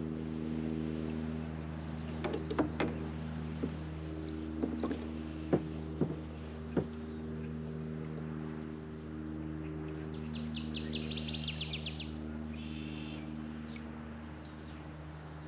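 A steady low hum, with a few sharp knocks in the first seven seconds. Birds chirp over it, with a fast trill of ticking notes about ten seconds in.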